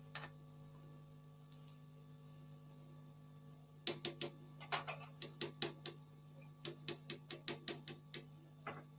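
Metal spoon clinking against an aluminium cooking pot: a run of sharp taps, about three or four a second, starting about four seconds in, over a faint steady hum.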